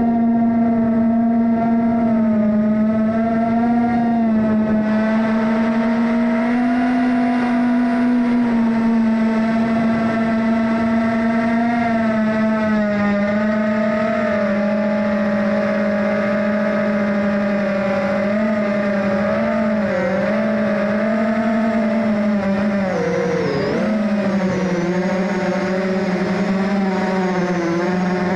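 Small FPV quadcopter's (GEPRC Smart 35) motors and propellers whining, heard through the onboard camera, the pitch wavering up and down with the throttle. About 23 seconds in the pitch dips sharply and then climbs back.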